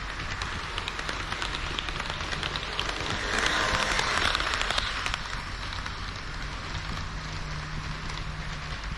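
HO-scale model train of KiHa 40 and KiHa 58 railcars running along the layout track: a continuous rushing clatter of wheels on rails. It grows louder between about three and five seconds in, then settles back.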